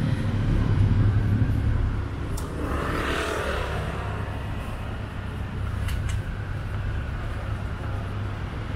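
City street traffic: a steady low engine rumble, loudest for the first couple of seconds, with a swell of hissing noise from a passing vehicle about three seconds in.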